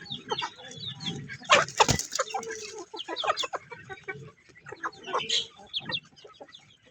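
Chickens clucking, with many short calls one after another and a louder burst about a second and a half in.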